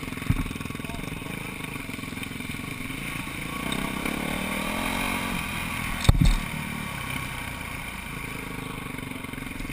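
Motocross bike engine running at low speed while the bike rolls along, heard from a helmet-mounted camera, with the revs rising briefly about four seconds in. A single thump about six seconds in.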